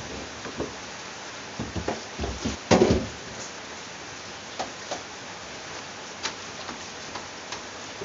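Plastic refrigerator parts knocking and clattering as a clear plastic tray is handled in the fridge. A cluster of knocks comes about two to three seconds in, the loudest near three seconds, then scattered light clicks over a steady hiss.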